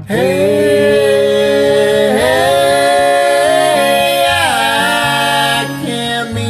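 A solo voice singing three long held notes, stepping in pitch about two seconds and four and a half seconds in, over a karaoke backing track.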